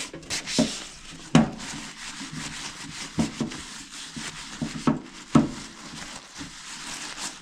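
Scrubbing the greasy glass door of a toaster oven with toothpaste: a continuous, uneven scratchy rubbing, broken by several sharp knocks as the tool or hand bumps the door.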